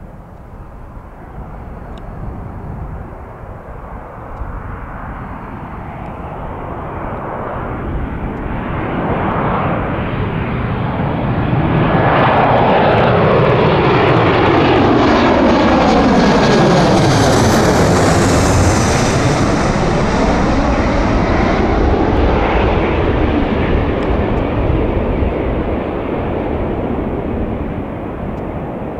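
Boeing 737 jet airliner passing close by: the engine noise swells over about ten seconds and is loudest around the middle, with a sweeping, phasing sound as the jet passes nearest, then slowly fades away.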